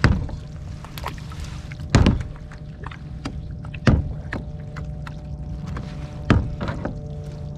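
Four sharp knocks, about two seconds apart, of gear bumping a kayak's hull, over a steady low hum.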